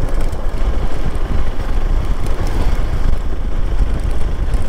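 Steady wind noise on the microphone of a moving vehicle, deep and heavy, with road and engine noise underneath.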